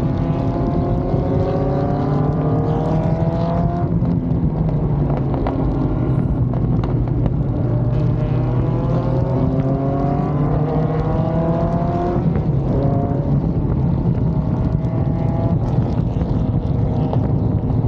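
V8 engine of a racing car accelerating hard, its pitch climbing with the revs and dropping back at several gear changes.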